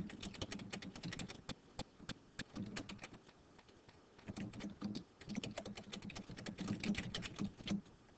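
Computer keyboard typing in quick runs of keystrokes, with a short pause of about a second near the middle.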